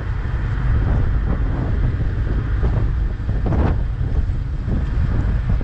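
Wind buffeting the microphone aboard a moving boat, a heavy low rumble with water noise.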